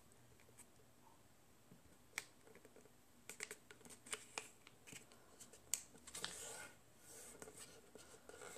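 Faint crinkling and small sharp clicks of origami paper being folded and creased by hand, with a longer rustle about six seconds in.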